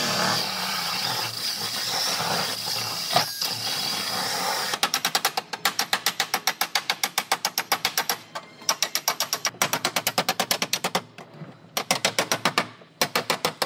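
A handheld power tool runs steadily for about five seconds. Then a body hammer rapidly strikes the sheet-metal edge of a car's trunk floor, about seven blows a second, in runs with short pauses.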